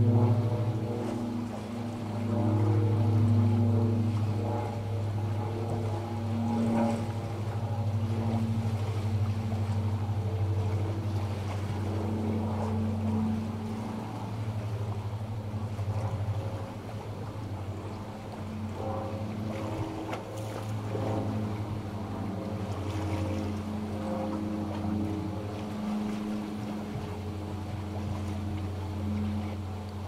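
Airplane engine running with a steady, low drone made of several tones, over a faint wash of sea waves.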